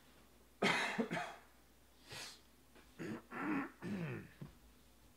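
A man coughs twice in quick succession, takes a breath, then clears his throat in a few short pitched grunts.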